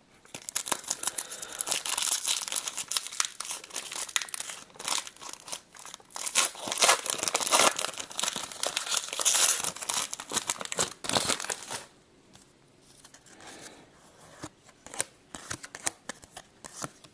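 Trading-card pack wrapper being torn open and crinkled, a dense crackling that runs for about twelve seconds, then quieter scattered ticks as the cards are handled.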